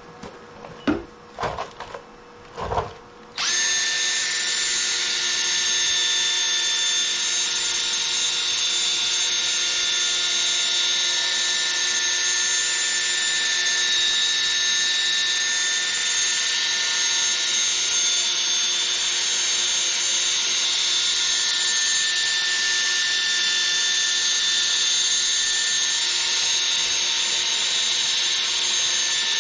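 A few short knocks, then about three and a half seconds in a cordless drill starts and runs steadily with a high whine, spinning a sanding or polishing pad against the plastic headlight lens.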